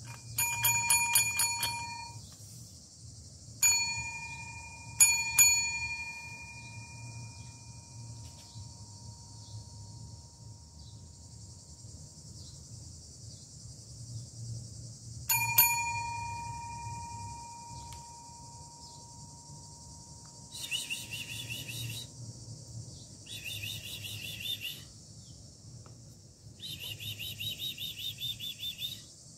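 A small metal bell rung in a quick trill for about two seconds, then struck singly a few times, the last ding ringing on for several seconds. Later, bursts of high, fast-pulsed chirping start up.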